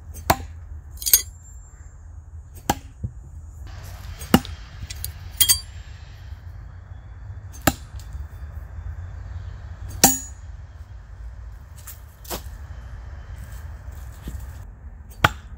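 Steel Smith & Wesson throwing knives striking a tree trunk: repeated sharp thunks unevenly spaced a second or more apart, a few with a short metallic ring.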